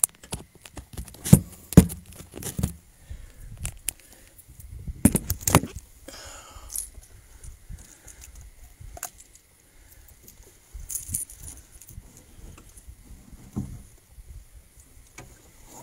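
Handling noise as a flathead catfish is unhooked and lifted up in a boat: scattered knocks and rustles, with several sharp knocks in the first six seconds and quieter shuffling after.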